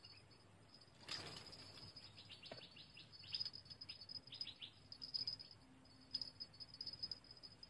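Faint outdoor ambience of insects chirring in a steady high buzz, with short bird-like chirps in quick clusters and a brief rustle about a second in.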